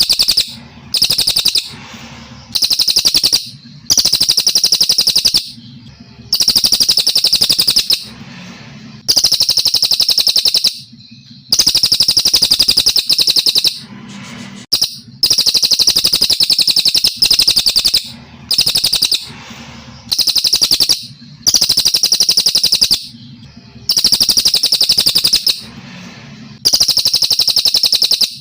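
A brown cililin, a Kalimantan songbird, singing a long series of high, rapidly pulsed trill phrases, each one to two seconds long with short pauses between them. This is the steady 'gacor' song used as a master recording for training caged birds.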